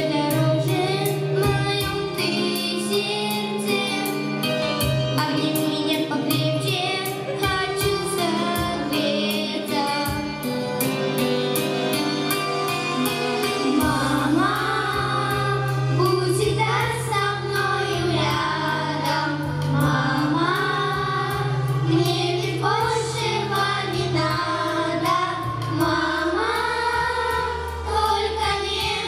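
Children's vocal ensemble singing into handheld microphones over an instrumental accompaniment with a steady beat.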